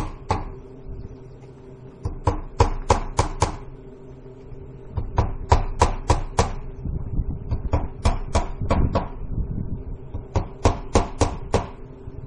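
Hammer driving nails into vinyl siding panels: four bursts of five or six quick, sharp blows, with pauses of a second or two between bursts.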